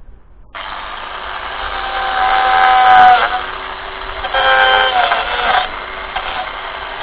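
Proxxon long-neck power carver switching on about half a second in and running with a whine, its pitch dipping now and then as it bites into the oak handle blank.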